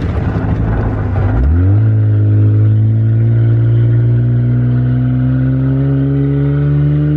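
Car engine accelerating: after a rough, noisy first second and a half, the engine note comes in strongly and climbs slowly and steadily in pitch.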